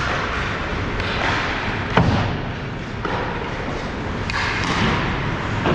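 Ice hockey play: skate blades scraping the ice and sticks clattering, with a loud knock about two seconds in and a couple of smaller knocks later.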